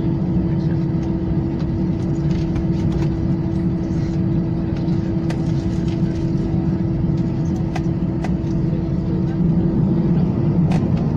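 Aircraft engines heard inside the cabin, running steadily: a constant low hum with a steady tone over it and a few small clicks, slightly louder near the end.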